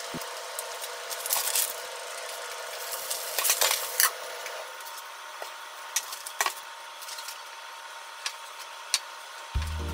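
Egg frying in a hot pan, a steady sizzle; about three and a half seconds in, a splash of water hits the pan with a louder hiss and the lid is set on with a clink, after which the sizzle is quieter, with a few light clicks. Background music comes back near the end.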